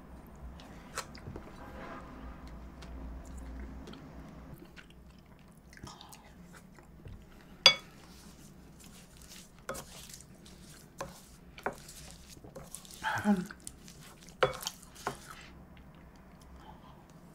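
Close-miked eating of shaved-ice dessert (bingsu) with a wooden spoon: soft chewing and lip smacks, with a scatter of sharp clicks and taps, the loudest about eight seconds in.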